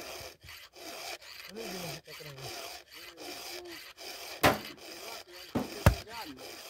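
Repeated rasping strokes of a file on the cutters of a Husqvarna 572 XP's saw chain, each with a squeal that rises and falls. Two sharp knocks, the loudest sounds, come about four and a half and six seconds in.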